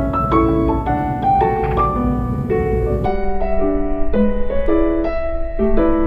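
Background piano music: a gentle melody of separate notes, several a second.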